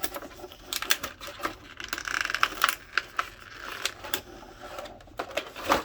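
Plastic packaging and a small plastic accessory being handled: a run of light clicks and taps, with a brief crinkle of plastic about two seconds in.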